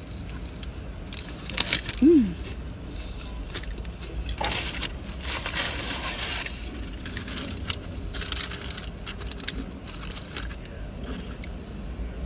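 Paper fast-food sandwich wrapper crinkling and rustling, with chewing and a short falling hummed 'mm' about two seconds in.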